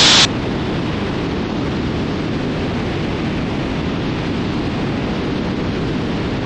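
Steady low rushing noise of a twin-engine Cessna T310R in flight, engine and airflow noise with no change in level.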